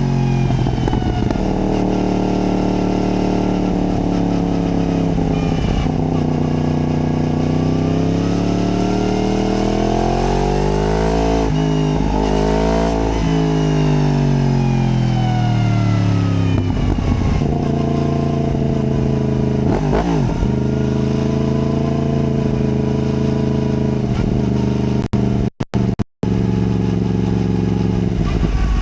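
Yamaha MT-10's crossplane inline-four running under a rider's throttle, its note swelling and falling as it accelerates, backs off and changes gear. The sound drops out twice for a split second near the end.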